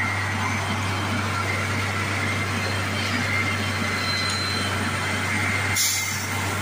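Diesel engine of a 09-32 CSM track tamping machine running steadily: a low, even hum with a steady high whine over it. A short burst of hiss near the end.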